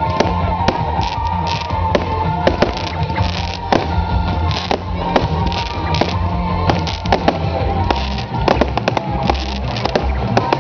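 A fireworks display: a rapid, irregular run of bangs and crackles from aerial shells and rising comets, several a second, with music playing underneath.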